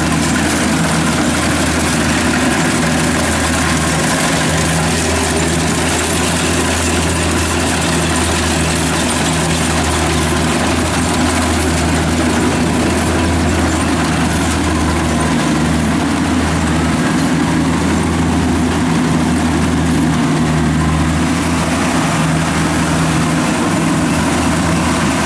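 Kubota rice combine harvester's diesel engine running steadily and loud while the machine works.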